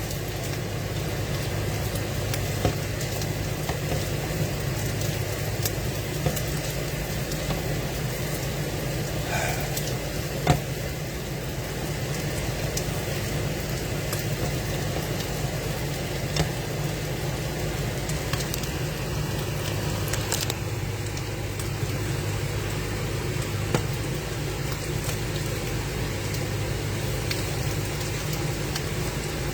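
Food cooking on a stovetop: a steady sizzle over a low hum, with a few light clicks.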